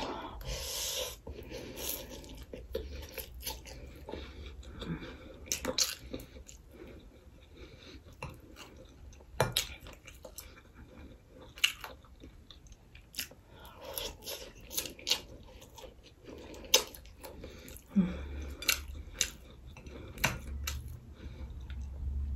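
Close-up eating sounds of tofu chow mein: noodles slurped into the mouth at the start, then wet chewing with scattered sharp clicks of the fork on the plate and mouth noises.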